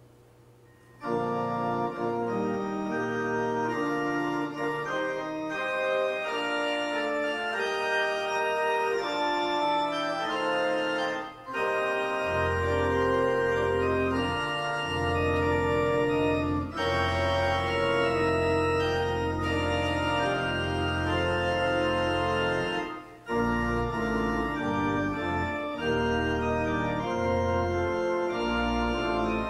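Church organ playing held chords, starting about a second in; deep bass notes come in about twelve seconds in, and the music breaks off briefly twice between phrases.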